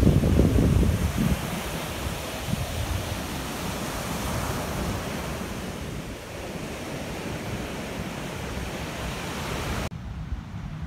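Sea surf washing onto a beach, with wind buffeting the microphone, strongest in the first second or so. It cuts off suddenly near the end to a quieter low rumble.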